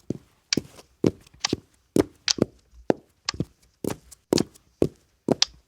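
Footsteps sound effect: steady walking steps, about two a second, many landing as a quick double tap.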